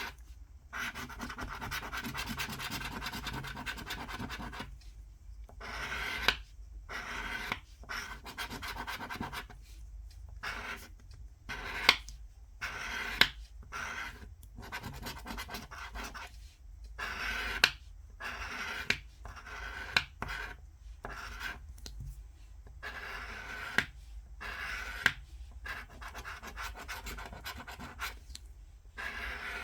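Scratch-off lottery ticket being scratched: repeated scraping strokes across the coating in bursts with short pauses between them, and a few sharp taps.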